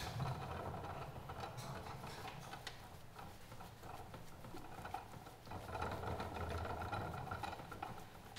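A steady mechanical whirring hum with scattered small clicks, easing a little in the middle and coming back near the end, while raw chopped meat is pressed by hand onto a doner kebab skewer.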